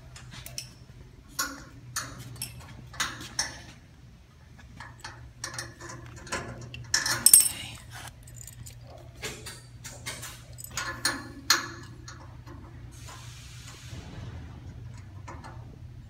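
Scattered metallic clicks, clinks and knocks of hand work on a carpet cutting machine's foot cable: the eyelet pushed into its holder and a nut fitted and tightened for tension. The loudest clatter comes about seven seconds in and a short rustle near the end, over a steady low hum.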